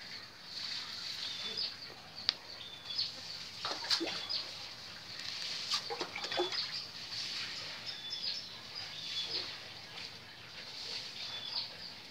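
Pond fish splashing and gulping at the water surface as they snap up floating feed pellets, with a few louder splashes about a third and halfway through. A bird chirps over and over in short high notes behind them.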